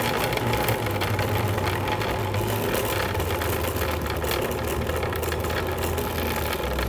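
An engine running with a steady low hum whose pitch slowly drops.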